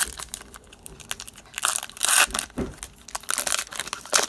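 A trading card pack's wrapper being torn open and crinkled by hand, in bursts of crackling, loudest around the middle and again near the end.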